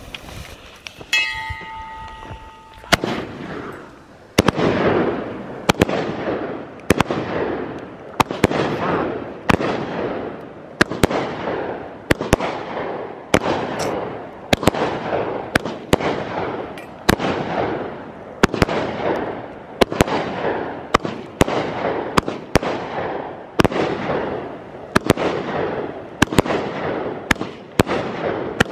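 An Outlaw Pyro 'Sin Vegas' 30-shot 500-gram firework cake firing a steady volley. From about three seconds in, a sharp shot comes roughly every two-thirds of a second, each followed by a fading crackling hiss from the break.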